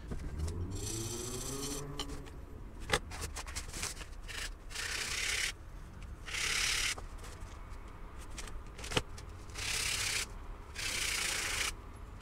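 Carbon alternator brush being rubbed down against an abrasive to narrow its sides to fit the brush holder: several separate scraping strokes of about half a second to a second each, with a couple of light clicks between them.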